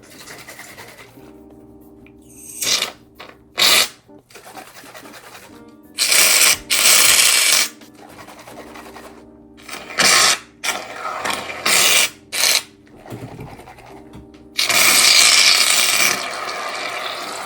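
Aerosol shaving cream can dispensing foam in two long hisses, one in the middle and one near the end, with a few short spurts between them. Background music plays steadily underneath.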